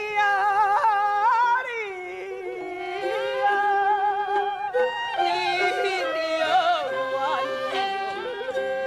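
Taiwanese opera (gezaixi) singing: a voice holding long, wavering notes over steady instrumental accompaniment.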